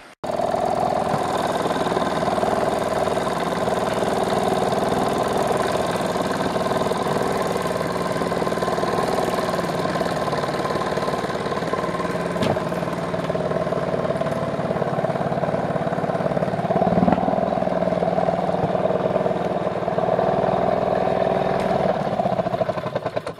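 Small outboard motor on a canoe running steadily, a constant engine note that starts suddenly and cuts off near the end.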